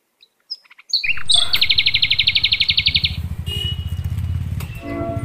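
A few short bird chirps, then an engine running with a low, rapid pulsing from about a second in, and a fast high trill over it for about a second and a half.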